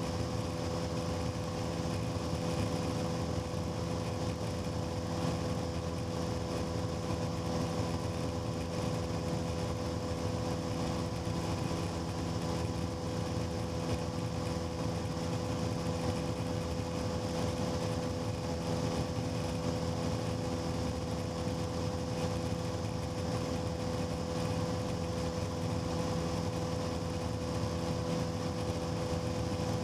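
Cessna 150's Continental O-200 four-cylinder engine and propeller running at a constant setting: a steady drone that holds the same pitch and loudness throughout.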